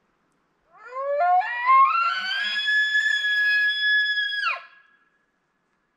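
Elk bugle: a whistling call that climbs in steps from a low note to a high one, holds that high whistle for about two and a half seconds, then drops off sharply and stops.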